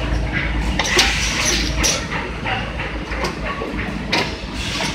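Shoe-factory production machinery running: a steady low hum with clatter and several short hissing bursts, the loudest about a second in.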